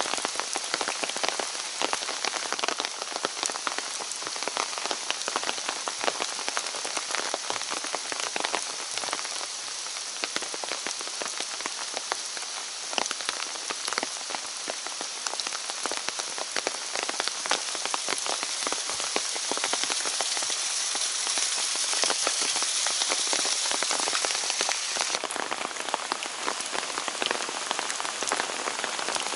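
Steady rain falling through forest: an even hiss with a dense patter of drops ticking close by.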